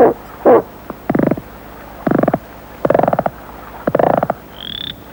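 A toad croaking four times, about a second apart, each croak a quick rattle. Two short, lower hoots come just before, and near the end a high, slightly rising whistle starts repeating.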